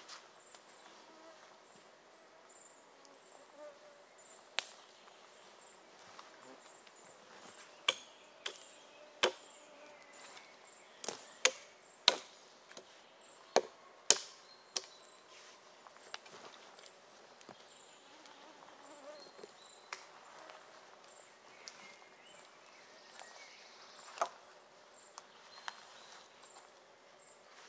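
Axe blows on wood: about a dozen sharp knocks, most of them bunched together around the middle, with a faint high chirp repeating steadily throughout.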